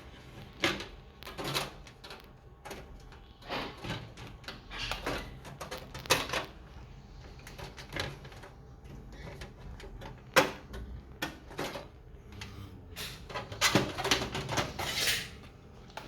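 Irregular clicks, knocks and rustling as computer parts and cables are handled and fitted inside a PC case.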